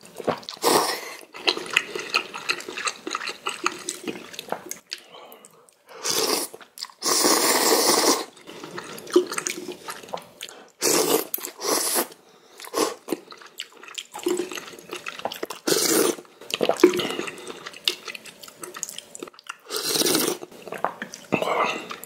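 Spicy ramen noodles and broth slurped off a spoon: several loud slurps a few seconds apart, the longest about seven seconds in, with wet chewing in between.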